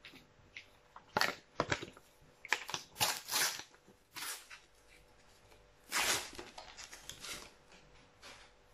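A paper sticker packet being torn open and crinkled by hand, in a series of short rustling tears. Lighter clicks and taps come from stickers being handled.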